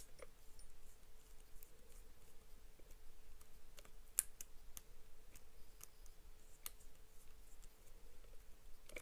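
Small screwdriver tightening the screws of a motor driver's screw terminal block to clamp the motor wires: faint, scattered clicks and ticks, the sharpest a little after four seconds in.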